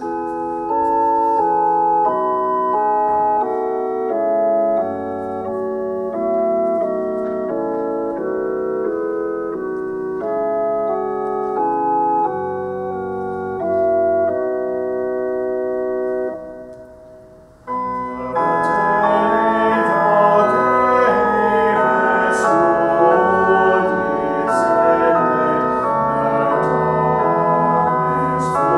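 Organ playing slow, sustained chords as a hymn introduction. It breaks off about 16 s in, then comes back louder at about 18 s with voices singing along.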